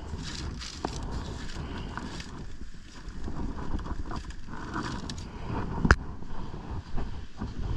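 Wind buffeting the microphone, with crinkling and knocks as a plastic zip-top bag and a bucket are handled; one sharp knock about six seconds in is the loudest sound.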